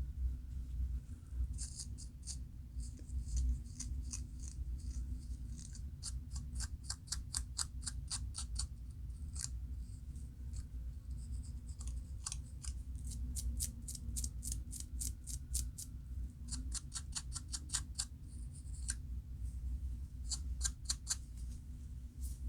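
Scalp being scratched through locs to loosen dandruff: runs of crisp, rapid scraping strokes, about six a second, broken by short pauses, over a steady low hum.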